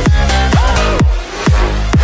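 Electronic dance music with deep kick drums about two a second, dropping out briefly about a second in.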